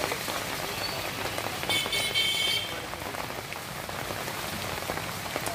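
Pouring rain falling steadily on a street, with a vehicle horn sounding once for about a second near the middle.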